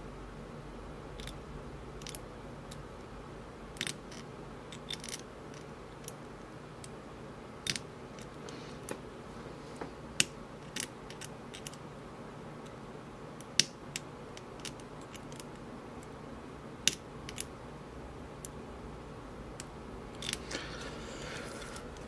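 Lock pick ticking and scraping against the pin stacks inside an Assa Abloy Maximum Plus cylinder as it is single-pin picked under tension. The ticks are faint, sharp and irregular, a couple every second or so, over a low steady hum.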